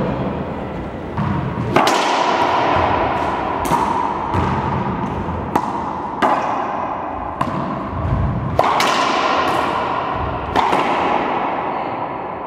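Racquetball being struck: a series of sharp, irregularly spaced cracks of the ball off racquets and walls, each ringing on in the hard-walled court.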